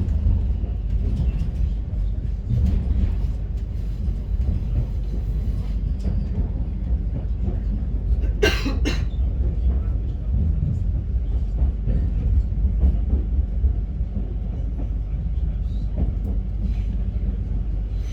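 Train running on rails, a steady low rumble with faint clicks, and a short, sharp hiss-like burst about halfway through.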